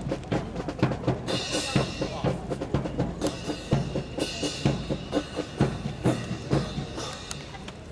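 Drum cadence for a military drill team: snare and bass drum beating a fast, steady rhythm with bright cymbal-like crashes, easing off near the end.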